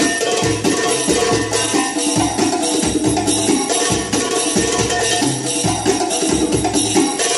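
Drum music for belly dance: a fast, dense drum rhythm with deep thumps and jingling tambourine.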